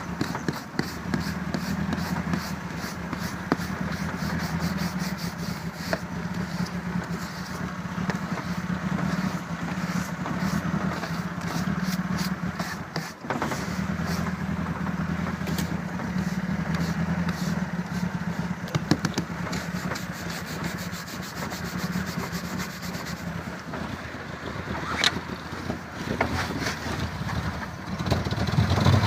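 Engine being cranked over in hard frost (about -20 °C), with a steady low drone and fast even ticking, a brief break about 13 seconds in; near the end the level rises as the engine starts to catch.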